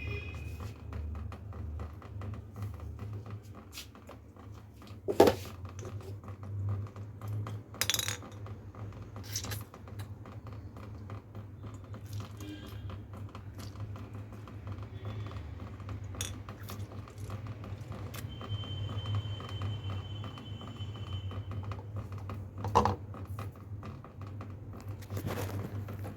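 Occasional clinks and knocks of kitchen utensils over a steady low hum.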